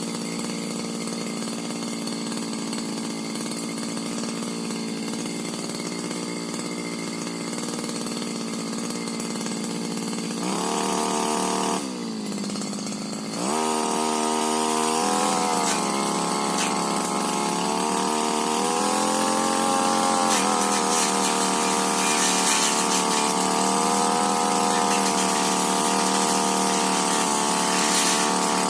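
Tiger TG328 two-stroke brush cutter engine running at a steady low speed, then revved up about ten seconds in. It drops back briefly and revs up again a second or so later, then runs on at high speed.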